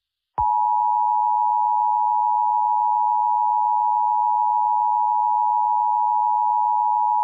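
Emergency Alert System attention tone: one steady, unwavering beep just under 1 kHz, starting about half a second in and held for about seven seconds before it cuts off.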